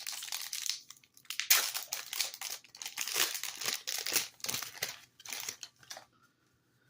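A Yu-Gi-Oh booster pack's foil wrapper being torn open and crinkled: a run of irregular rustling and tearing noises, loudest about a second and a half in, that stops near the end.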